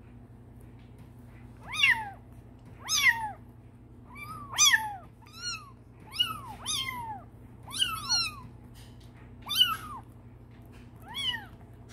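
Bengal kittens mewing repeatedly: about ten short, high-pitched mews, each rising and then falling, some coming in quick pairs.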